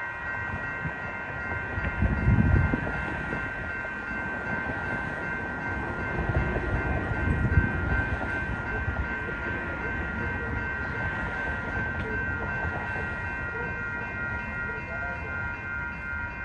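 Metra commuter train approaching the station: a low rumble that swells about two seconds in and again around seven seconds, under a steady set of high ringing tones.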